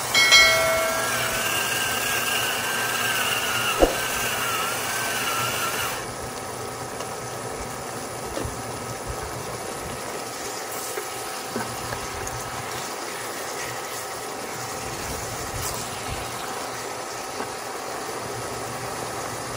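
Steady hum and hiss of a pot of pechay cooking on an induction cooktop, stirred with a silicone spatula. Over the first few seconds a faint wavering whistle-like tone sits on top, with one sharp knock about four seconds in; after that the sound drops to a quieter steady hum.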